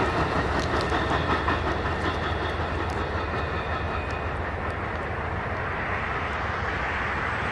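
Amtrak passenger cars rolling past and away on the rails: a steady rumble of steel wheels on track that grows a little fainter over the first few seconds as the train recedes.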